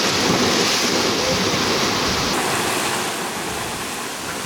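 Sea water rushing and splashing along the hull of a sailing yacht under way, with wind on the microphone. The highest hiss drops away a little over two seconds in, and the sound then slowly eases.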